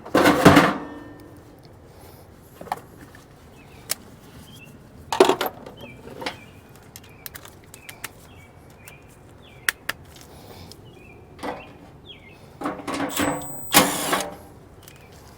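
Intermittent knocks, clunks and scrapes of sheet-metal furnace blower parts being handled while the blower assembly is taken apart, with the loudest clunks just after the start, about five seconds in, and a quick cluster near the end.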